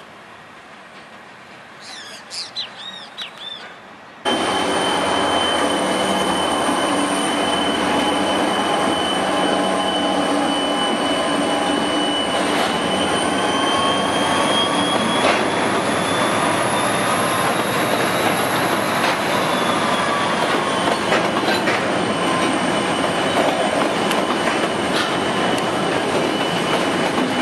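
Freight train hauled by diesel locomotives passing close by: engines running over the rumble of the wagons, with a steady high squeal that rises a little in pitch and then settles back. For the first few seconds it is quieter, with a few short wheel squeals; about four seconds in, the sound jumps suddenly to loud.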